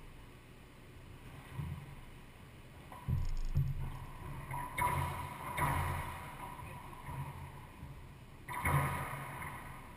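Racquetball rally in an enclosed court: the hollow smack of the ball off racquets and walls, about four sharp hits from about three seconds in, each ringing in the court, with players' shoes moving on the hardwood floor between them.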